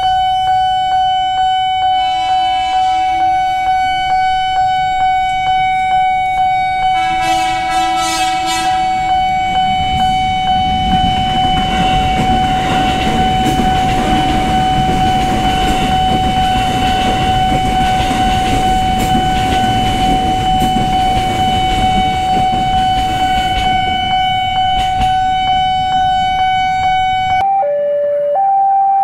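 A level-crossing warning bell rings steadily on one high tone. An electric commuter train sounds its horn twice, once a couple of seconds in and again about seven seconds in, then rumbles and clacks past over the rails. Near the end this gives way to a different crossing alarm alternating between two pitches.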